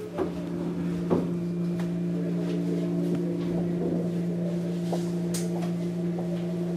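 Steady electrical hum from a stationary 115 series electric train, heard from inside the car, growing louder just after the start and then holding even, with a few faint clicks.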